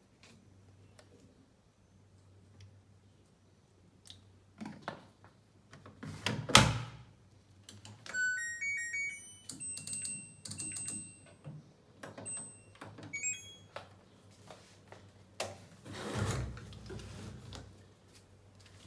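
Household handling noises: a sharp knock about six and a half seconds in, then clattering with a run of short electronic beeps at several different pitches, and a longer rustling stretch near the end.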